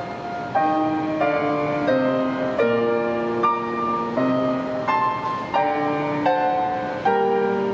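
Grand piano playing a slow classical piece: a new chord or note struck about every three quarters of a second, each ringing and fading until the next.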